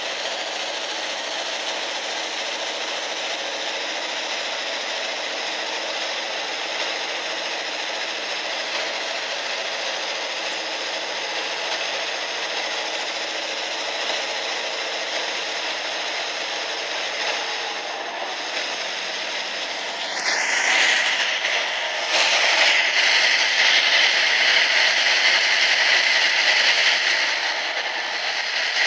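Train running through a rail tunnel: a steady rush of wheel and air noise, echoing off the tunnel walls. About two-thirds of the way through it grows louder and harsher, with a high, hissing edge.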